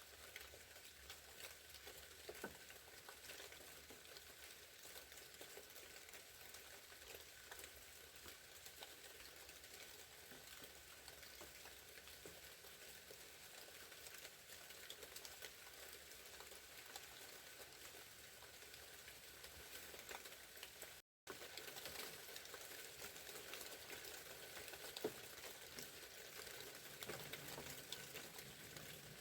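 Faint, steady patter of light wet precipitation, many tiny ticks falling on the surroundings, with a brief cut to silence about two-thirds of the way through.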